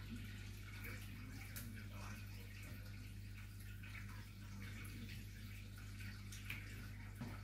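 Quiet room tone: a steady low hum and faint hiss, with a few soft scattered ticks and rustles.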